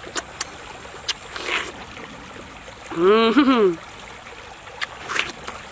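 Wet chewing and slurping of juicy watermelon, with scattered lip smacks and mouth clicks. About three seconds in, a short hummed "mmm" that rises and falls in pitch.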